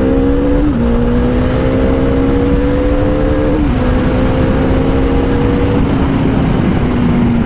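Motorcycle engine accelerating and shifting up through the gears: its pitch climbs, drops at a gear change about a second in and again about halfway through, then eases off slightly near the end. Heavy wind rush runs underneath.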